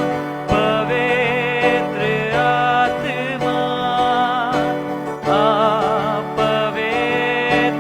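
Live worship band music with no lyrics: a sustained lead melody that wavers with vibrato, over steady held chords. The sound is dull, with no high end, as from a low-quality live-stream recording.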